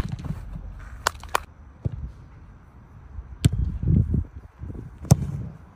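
A football kicked on a grass pitch: several sharp strikes, two in quick succession about a second in, with running footsteps on the grass.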